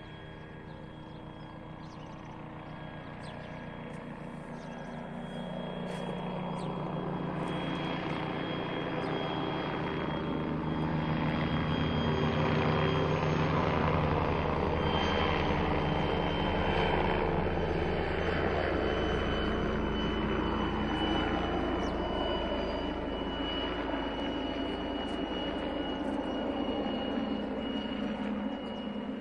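Police helicopter flying overhead, its rotor chop and a steady high turbine whine growing louder over the first dozen seconds as it comes near, then holding at that level.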